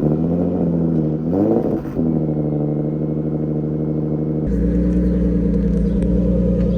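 Single-turbo Infiniti G35 coupe's VQ V6 idling just after its first start on boost, through a Motordyne exhaust. It gives a brief blip of revs about a second and a half in, then settles to a steady idle, which deepens a little past the middle.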